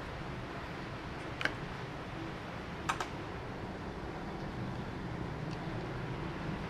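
Steady low background hum with two light clicks, about a second and a half apart.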